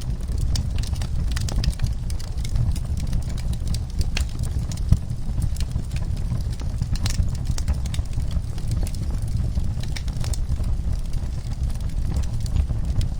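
Wood fire crackling: irregular sharp pops and snaps over a steady low rumble, with one louder pop about five seconds in.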